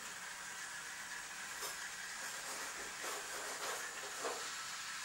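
Steady hiss of room tone, with a few faint short sounds about two seconds in and again near the end.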